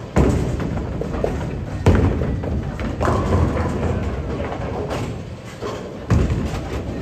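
Bowling balls thudding onto the lanes and crashing into pins: about four heavy impacts, each followed by a rumbling tail.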